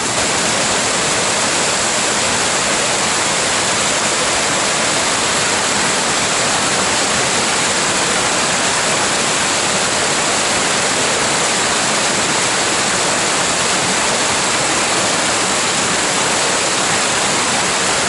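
Swollen mountain stream rushing over rocks, a loud steady whitewater rush close by; the stream is running high after a typhoon.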